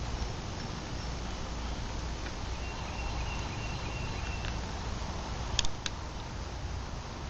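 Steady workshop background noise with a faint high thin tone for a couple of seconds in the middle, then two sharp clicks about five and a half seconds in.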